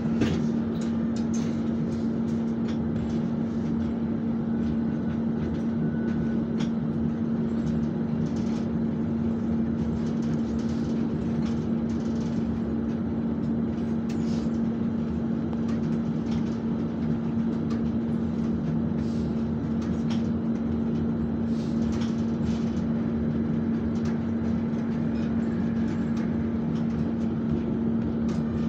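Alsthom TFS tram running along the line, heard from inside the passenger car: a steady running noise with a constant low hum and a few faint clicks.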